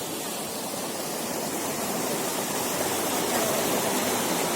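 Waterfall: falling water rushing in a steady, even roar.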